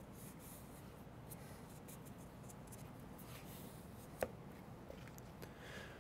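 Fingers pressing and rubbing a self-adhesive foam seal strip down onto a soft-top's lower header, making faint rubbing and light ticks, with one small sharper click about four seconds in.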